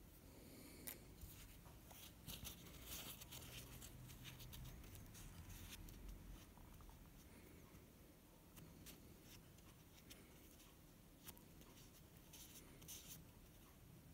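Near silence with faint handling noise: scattered small clicks and rustles, bunched about two seconds in and again near the end.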